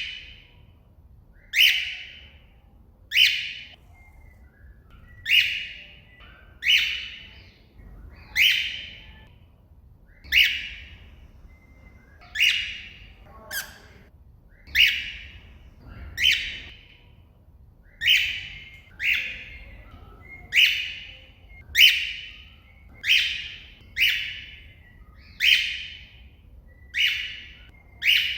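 Cockatiel giving loud, repeated contact calls, a short call about every one and a half seconds, calling out to another bird.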